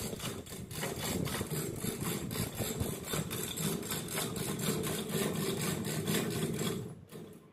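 A chain hoist running steadily while it lifts an engine's cylinder head, starting suddenly and stopping about seven seconds in.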